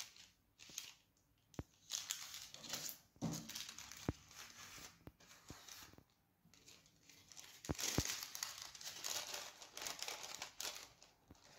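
Sheet of baking paper rustling and crinkling in short, faint stretches as it is folded and creased by hand, with a few sharp ticks among them.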